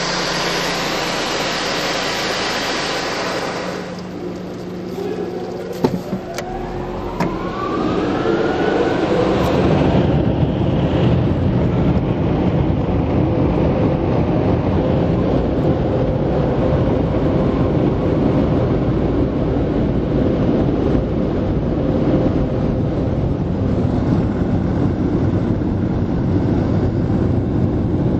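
Automatic car wash air dryer blowers, heard from inside the car's cabin. A steady hiss gives way to a short lull with a click about six seconds in. A blower motor then spins up with a rising whine, and the blowers run on with a loud, steady rush of air.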